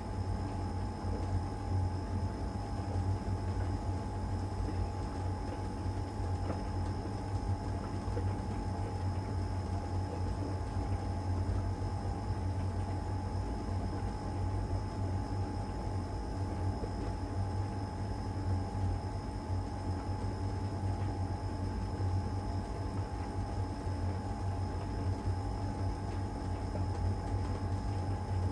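LG heat pump tumble dryer running steadily in the Cupboard Dry stage of an Easy Care cycle: a constant low hum with a steady whine above it.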